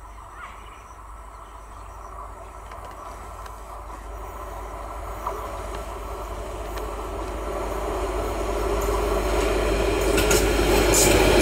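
Indian Railways ICF inspection car approaching on the track, its wheels running on the rails and growing steadily louder as it nears, with a few clicks near the end.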